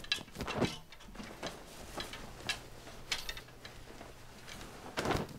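Clothes being pulled from a closet and handled: cloth rustling with irregular knocks and scrapes, loudest in the first second and again near the end.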